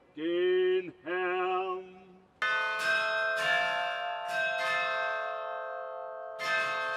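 A tower watchman's call sung through a large copper speaking horn: two long drawn-out notes, the second wavering. From about two and a half seconds in, bells chime, several strikes that ring on.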